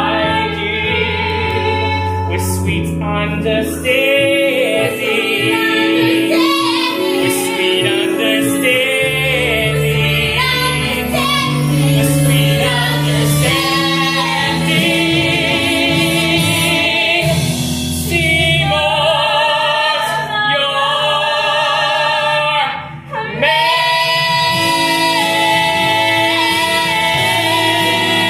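A man and a woman singing a musical-theatre duet with backing chorus and accompaniment, rising after a brief break near the end into a long held note.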